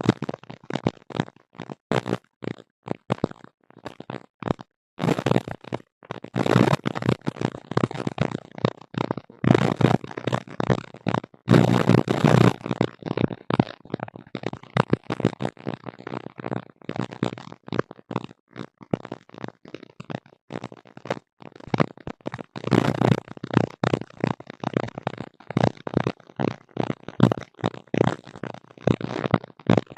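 Erratic crackling and sputtering noise in a tablet's recorded audio, coming in dense irregular bursts with brief gaps: the unexplained noise that gets into the tablet, like interference.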